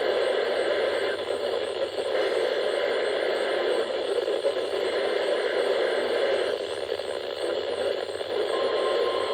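Weather radio receiver hissing with static on a weak or empty channel while it is tuned between stations. A faint steady tone comes in near the end.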